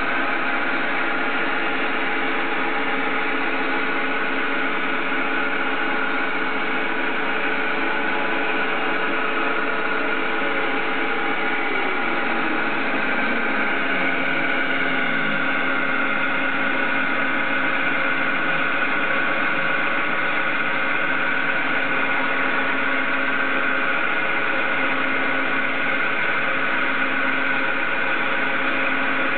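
CNC lathe running while a boring bar cuts a hemispherical recess, the spindle's steady hum mixed with the whine of the stepper motors driving the saddle and cross slide. Between about 8 and 16 seconds in, one tone falls steadily in pitch as a feed speed changes along the curve.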